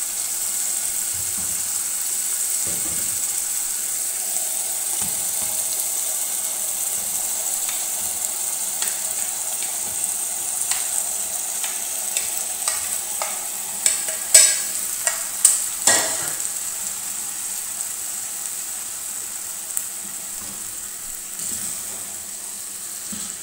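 Tomato masala sizzling steadily in a pot on the stove, with the scrape and tap of a spatula stirring it. About two-thirds of the way in, a run of sharp clatters as sliced okra is tipped in from a plate and stirred through.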